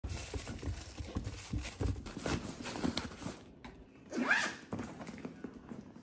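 Plastic bags and packets being rummaged through by hand: rustling with many irregular soft knocks and thumps, and a short rising sound about four seconds in.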